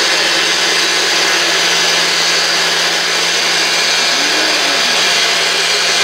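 NutriBlend personal blender running steadily at full speed, blending a leafy green smoothie: a loud, even whirring over a constant motor hum.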